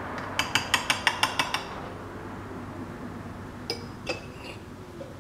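A quick run of about eight sharp metallic clinks over about a second: the powder funnel knocking against brass cartridge cases while a powder charge is poured in. Near four seconds, two more clinks as the metal powder pan is set back onto an RCBS ChargeMaster 1500 scale.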